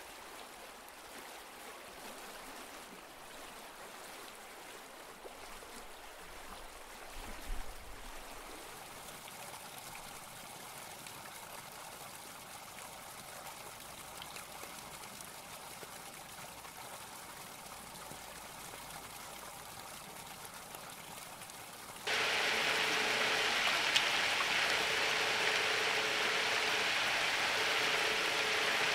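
Steady hiss of running water, faint at first and much louder from about 22 seconds in, with a faint broken hum under the louder part. A brief knock about seven seconds in.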